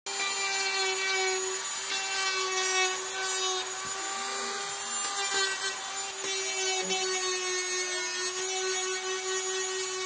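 Handheld rotary tool running at steady high speed, a constant whine, its small burr scuffing the painted steel surface of a front door. The scratching keys the smooth paint so that filler putty will stick.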